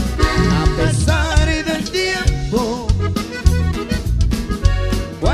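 Norteño band playing live: accordion melody over five-string electric bass and a drum beat.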